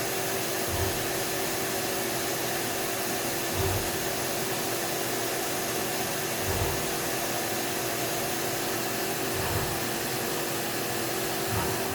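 Haas 5-axis CNC mill running: a steady whirring hiss with a constant hum, and a soft low thump about every three seconds.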